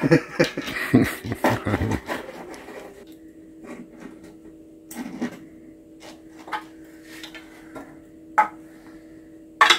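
Metal clinking and clattering as steel tools are worked down inside a truck frame, busy for the first two seconds and then a few separate sharp clicks. A steady low hum comes in about three seconds in.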